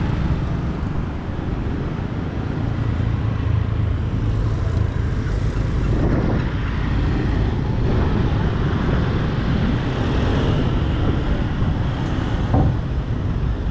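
Steady road traffic noise of cars and motorbikes moving past, with a continuous deep rumble underneath.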